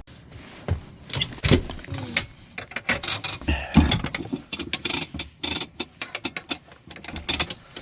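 Irregular clattering and clicking of hard objects, with many sharp clicks in quick succession through the middle and latter part.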